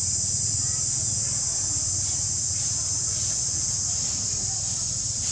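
Insects droning steadily at a high pitch, over a constant low rumble.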